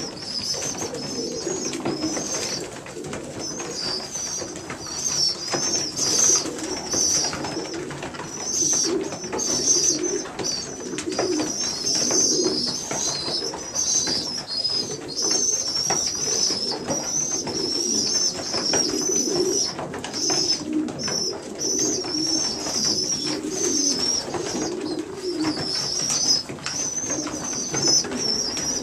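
A group of newly weaned young racing pigeons, about four weeks old: a constant high, wavering peeping from the squeakers over low cooing, with many small clicks scattered through.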